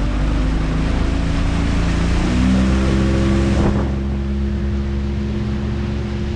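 Boat engine running steadily under a rush of water and wind noise; the tone of the engine shifts a little after about two seconds, and the rushing hiss drops off just before four seconds in.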